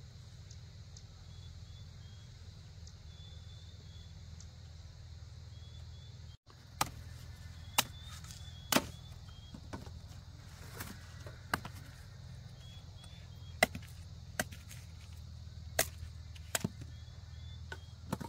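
Sharp chopping strikes with a blade, irregular and roughly one a second, starting about six seconds in, over a steady low hum.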